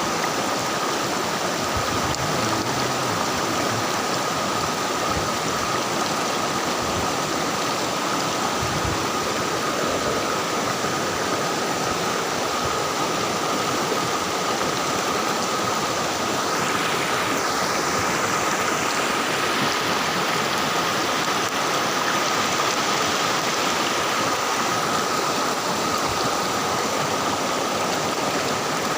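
River water rushing and splashing steadily over rocks, with a thin steady high tone in the background.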